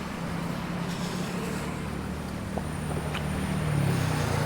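Street traffic: a motor vehicle's engine running close by, growing louder near the end, with a thin high whine joining about two seconds in.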